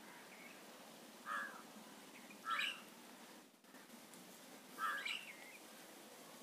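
Three short bird chirps, faint, spaced a second or two apart, over a low background hiss.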